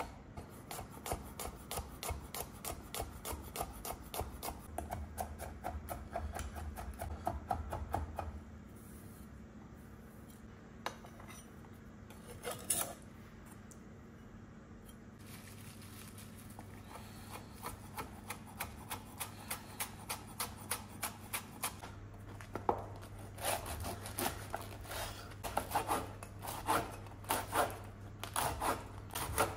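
Chef's knife tapping quickly on a wooden cutting board as garlic cloves are sliced, then a quieter stretch with a few knocks and scrapes on the board. Near the end a long bread knife saws through crusty bread on the board, with louder repeated strokes.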